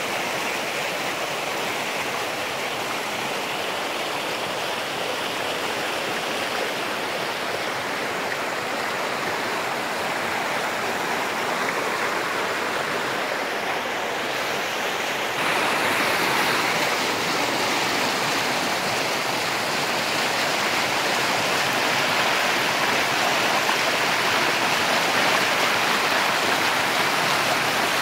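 Shallow river rushing and splashing over rocks and boulders in small rapids, a steady continuous rush of water. A little past halfway the sound abruptly becomes louder and brighter.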